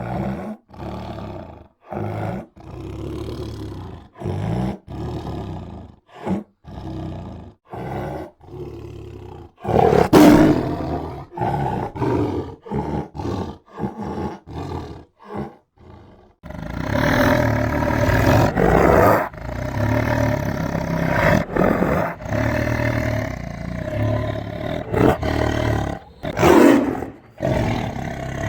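Tiger growling and roaring: a string of short calls broken by brief pauses, then, a little past halfway, a long unbroken stretch of roaring.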